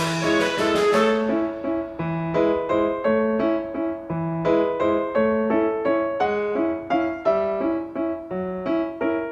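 Light classical background music led by keyboard notes, with a steady run of melody over regularly repeating bass notes.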